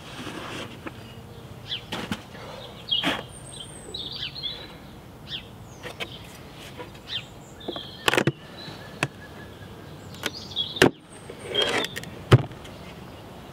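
Wooden beehive parts being handled: soft rustling as wool insulation is lifted out, then scattered sharp wooden knocks and clicks as the empty hive box is lifted off, with brief bird chirps behind.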